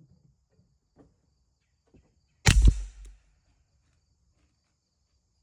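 A single suppressed 9mm gunshot from a rifle fitted with a Yankee Hill Machine R9 suppressor, about two and a half seconds in, with a short tail after it. A few faint ticks come before it.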